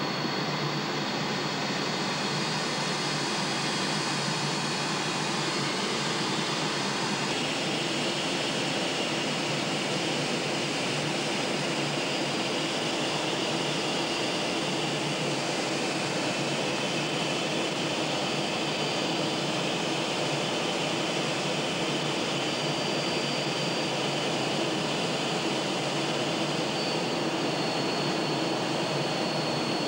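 Steady jet engine and rushing air noise heard inside a jet cockpit in flight, with a thin high whine over it; the sound changes slightly about seven seconds in.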